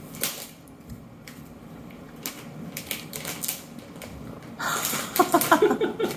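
Slurping through long plastic novelty glasses-shaped drinking straws: rapid crackly clicks of drink and air bubbling up the tube. It gets louder and gurgly over the last second and a half.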